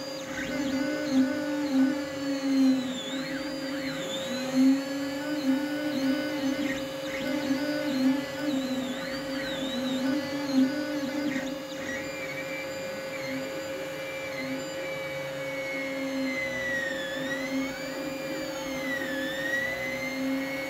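Creality Ender 5 Plus 3D printer running, its stepper motors whining in pitches that rise and fall again and again as the print head speeds up and slows down, over a steady hum and a wavering lower drone. There are a few louder bumps in the first half.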